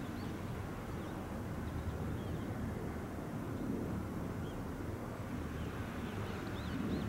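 Steady low outdoor rumble of wind and distant road traffic, with faint short bird chirps now and then and a few more together near the end.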